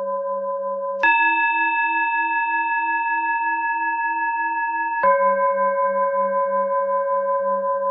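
Tibetan singing bowls ringing with a slow, even wobble. A lower bowl sounds first, then a higher bowl is struck about a second in and rings for four seconds, and the lower bowl is struck again near the five-second mark. They are timing cues: the high tone for breathing in, the low tone for breathing out.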